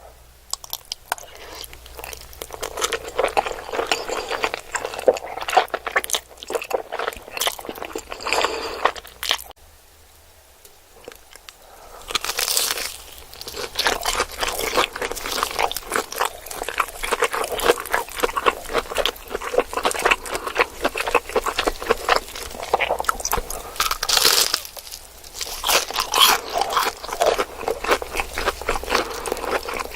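Close-miked ASMR eating: crunchy food bitten and chewed in dense, crackling crunches, with a quieter pause of a couple of seconds about ten seconds in.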